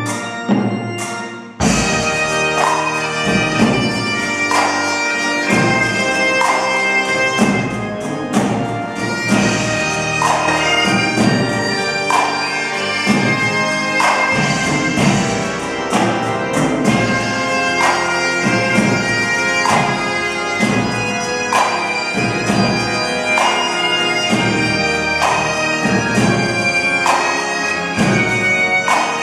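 Great Highland bagpipe playing a tune with a pipe-band drum corps of snare drums and a bass drum, over a pipe organ. The sound dips briefly near the start, then the full ensemble comes in with regular drumbeats.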